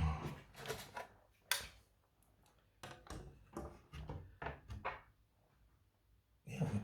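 Scattered light clicks and knocks of tools and the circuit board being handled and set down on a workbench, one sharper click about a second and a half in and a run of small taps a little later.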